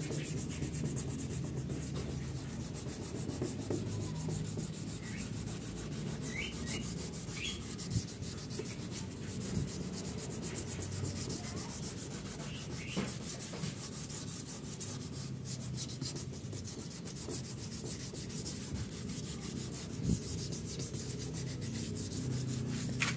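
Fine sandpaper rubbed by hand back and forth over a scooter's ABS plastic body panel in rapid, continuous strokes, sanding away the white oxidised crust to bring back the bare plastic.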